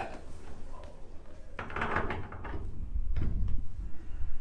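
Handling noises: a rustle about two seconds in, then a couple of soft knocks, as a patient is moved into position on a chiropractic treatment table.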